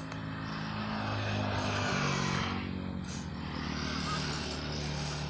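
A motor vehicle's engine running, a low steady hum that shifts pitch a couple of times, with a rush of noise that swells and fades twice as it passes.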